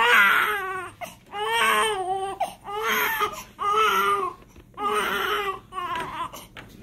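Newborn baby crying: about six short wails in a row, each under a second long, with brief gaps for breath between them.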